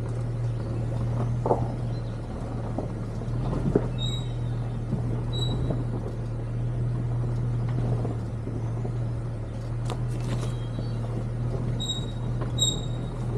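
Engine and cabin noise of a 1999 Jeep Cherokee XJ driving a rough trail: a steady low drone with scattered knocks and rattles from bumps. A few short high squeaks come about four seconds in, at five and a half seconds, and twice near the end.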